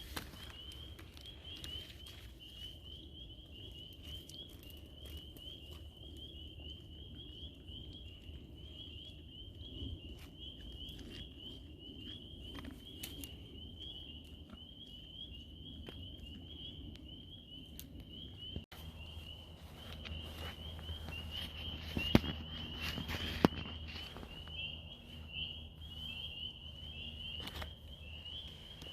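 Outdoor woodland ambience. A steady high-pitched trilling chorus from wild creatures runs throughout, with scattered light clicks and rustles nearby. Two sharper clicks stand out a little past twenty seconds in.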